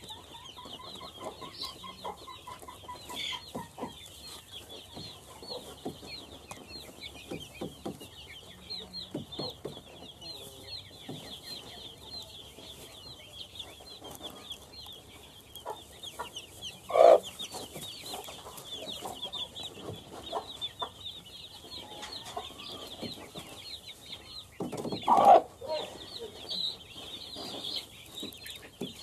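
Domestic chicks peeping continually in quick, high cheeps, with a mother hen giving two loud short calls in the second half, about eight seconds apart.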